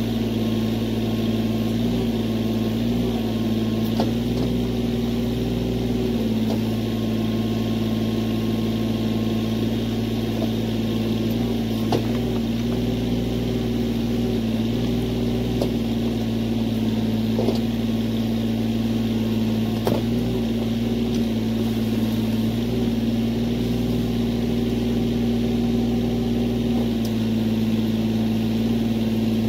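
Husqvarna 562xp two-stroke chainsaw engine running steadily at high speed, its pitch dipping slightly now and then, with a few faint knocks.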